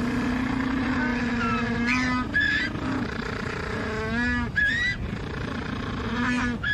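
African penguins braying in their donkey-like ecstatic display call: one long, steady bray, then several shorter brays that rise and fall in pitch.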